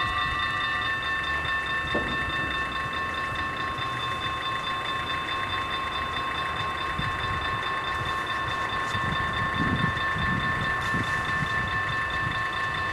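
Level crossing warning bells ringing steadily, several bells at different pitches sounding together; a couple of them stop about a second in. A low rumble rises beneath them in the second half.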